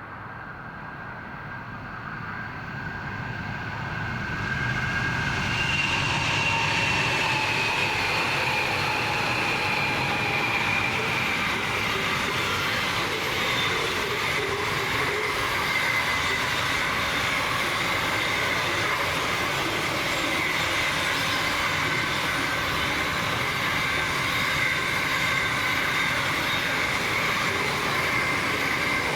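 Freight train hauled by four NR class diesel-electric locomotives approaching and passing, its sound growing over the first five seconds. It then settles into the steady rumble of container wagons rolling by, with a high, steady wheel squeal.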